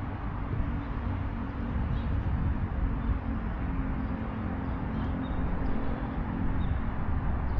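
Outdoor background noise: a steady low rumble with a faint hum through the middle, and a few faint, short high chirps.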